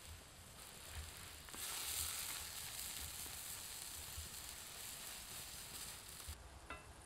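Grated beetroot sizzling as it fries on a flat metal disc pan over a wood fire, stirred with a wooden spatula. The sizzle swells about a second and a half in and stops suddenly near the end.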